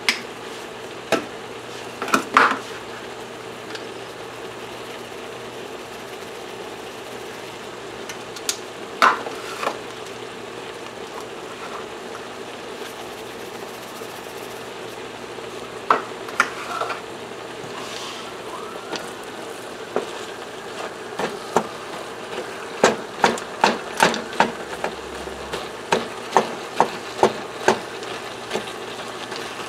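Ground turkey and onion browning in a skillet with a steady sizzle. A wooden spatula knocks against the pan a few separate times in the first half, then in a quick run of strokes near the end as the meat is broken up and stirred.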